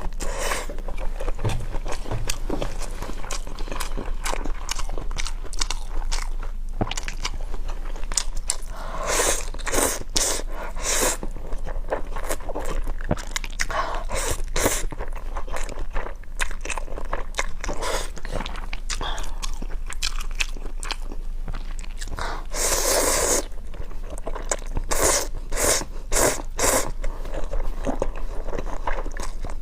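A person eating close to the microphone: chewing and smacking mouth sounds with frequent small clicks, broken by several louder, longer noisy bursts.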